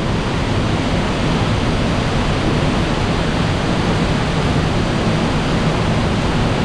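Waterfall plunging through an opening in a cave roof into a rock pool: a loud, steady rush of falling water.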